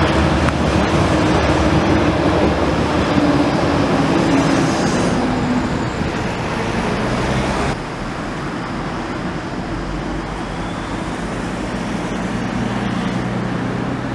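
Bombardier tram running on its rails, a steady rumble with a falling whine from its electric drive. About halfway through the sound drops suddenly to a quieter hum, and a faint rising whine follows as a tram pulls away.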